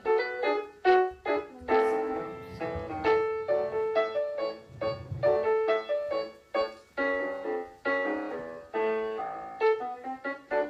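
Piano music playing a gavotte: a quick stream of separately struck notes.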